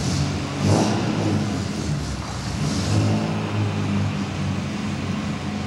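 Fiat 8V's two-litre V8 engine running as the car moves slowly forward, with short throttle swells about a second in and again around three seconds in.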